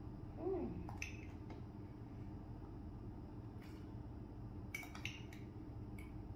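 Metal spoon clinking against a glass jar and cup as salt is spooned into water, a few light clicks spread out. About half a second in, a short cry falls in pitch.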